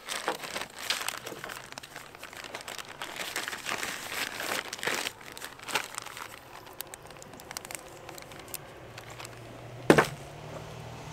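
Plastic packaging crinkling as it is handled, busiest in the first six seconds, then a single sharp knock about ten seconds in. A low steady hum comes in near the end.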